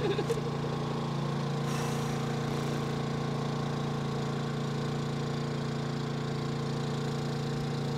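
Boat's generator running steadily, an even engine hum.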